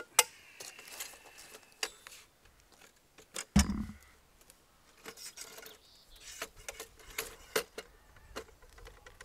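Metal parts of a chainsaw mill frame clinking and rattling as they are handled and fitted together, in scattered short clicks, with one heavier dull thump about three and a half seconds in.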